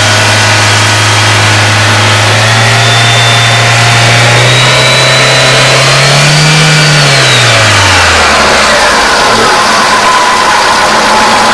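Petrol car engine, a freshly fitted replacement that runs well, revved slowly up from idle and then let drop back to idle about eight seconds in. A faint high whine rises and falls with the revs.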